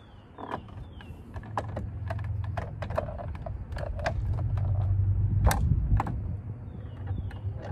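Sharp plastic clicks and snaps as a new aftermarket kidney grille is pressed by hand into a BMW F10's front bumper, its retaining clips clicking into place, the loudest snap about five and a half seconds in. A low steady rumble builds underneath from about a second and a half in.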